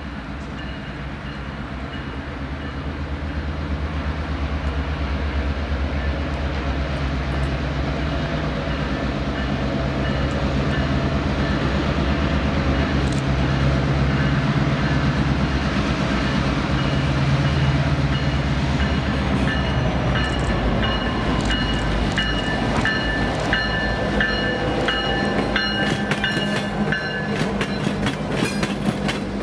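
Diesel locomotives of a passenger train, F9A and F7B F-units followed by SD50-2 units, approaching and passing with their engines running, growing louder over the first ten seconds or so. From about two-thirds of the way in, rapid wheel clicks over the rail joints as the locomotives go by.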